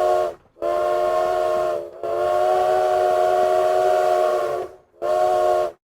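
Steam locomotive whistle sounding a chord of several steady tones in separate blasts. The end of one blast is followed by a short blast, a long blast of nearly three seconds, and a short blast to finish.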